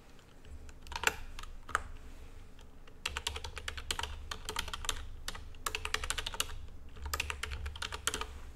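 Typing on a computer keyboard in several quick bursts of keystrokes, with short pauses between them.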